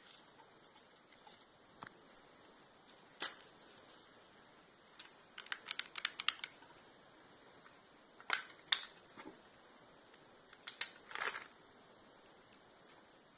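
Handling noise: sparse light clicks and knocks, with short runs of quick clicking about halfway through and again near the end.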